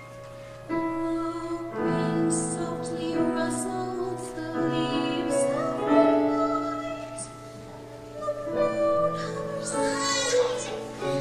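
A solo singer with a high voice sings an operatic-style song over instrumental accompaniment, holding long notes with vibrato near the end.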